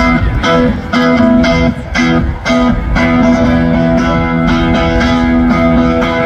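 A live band playing loudly through a festival PA, with electric guitars held over a steady drum beat, heard from within the crowd.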